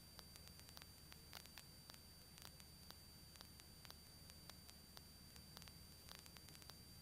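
Near silence on the cockpit intercom audio feed: faint static hiss with a steady high-pitched whine and scattered crackling clicks.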